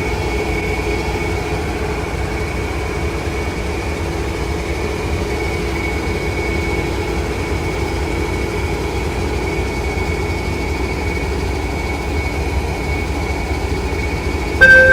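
MBTA MPI HSP46 diesel locomotive running steadily, a constant engine hum with a high whine over it. A sudden louder tone cuts in right at the end.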